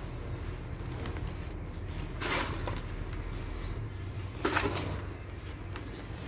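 Hands squeezing and crumbling dry sand-and-cement mix in a plastic tub: soft gritty crunching and rustling, with two louder crunches about two seconds and four and a half seconds in.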